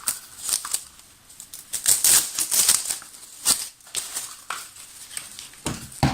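Laptop being handled: irregular light clicks and scuffs of its plastic casing being moved about.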